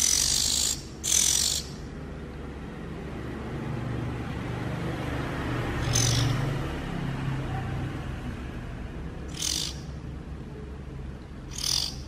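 Oriental magpie-robin fledgling giving high-pitched begging calls while it is hand-fed: two calls close together at the start, then three more spaced a few seconds apart.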